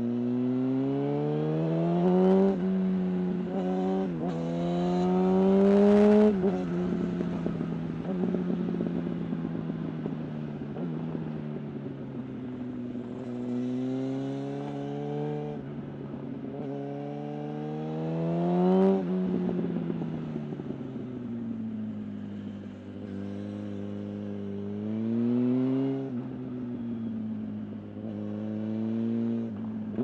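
Yamaha R1's inline-four engine, heard from the rider's seat, revving up through the gears in the first few seconds, its pitch climbing, dropping sharply at each upshift and climbing again, loudest about six seconds in. Then it alternates between easing off, the pitch sinking, and hard acceleration again, with another loud rise a little before the twentieth second.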